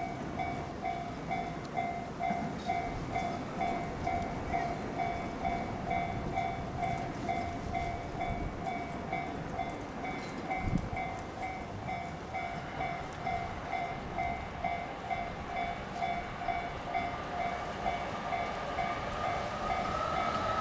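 Japanese level-crossing electronic warning bell ringing steadily at about two strikes a second, over the rumble of a train running through the crossing.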